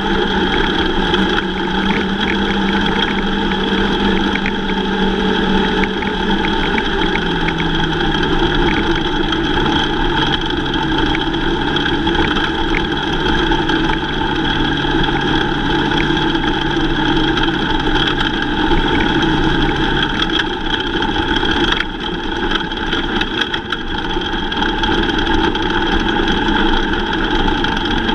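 Lightning sprint car engines running in a heat race, a loud, steady, dense drone of several engines. One low tone in it drops in pitch about seven seconds in and fades out around twenty seconds in.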